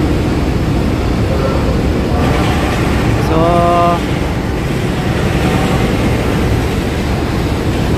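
Steady low engine rumble filling a roll-on/roll-off ferry's vehicle deck, with voices of passengers in the background and a short held tone, louder than the rest, about three seconds in.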